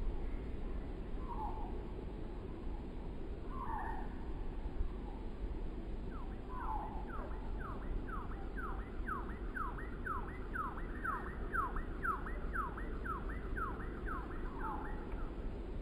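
Wind rumbling steadily on the microphone as pine branches sway. A few short calls sound over it, and from about six seconds in a distant call repeats about twice a second, each a quick downward sweep, stopping shortly before the end.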